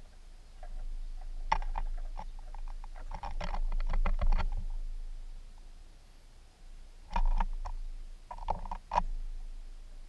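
Black-capped chickadee at a wooden platform feeder: quick clicks and taps of its feet and bill on the wood and seed, in two bursts, about a second and a half in and again around seven seconds.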